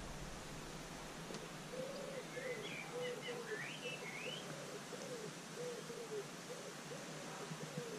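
A pigeon cooing, a run of low hooting notes about two a second, with a small bird chirping briefly over it about two to three seconds in.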